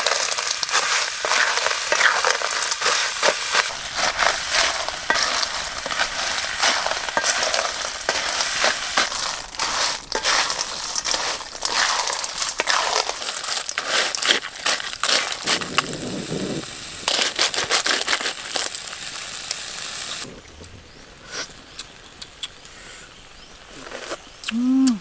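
Small clams in their shells sizzling and clattering as they are stir-fried with a spatula in a wok over a wood fire, a dense crackle of frying and shell clicks. It stops abruptly about twenty seconds in, leaving only a few faint clicks.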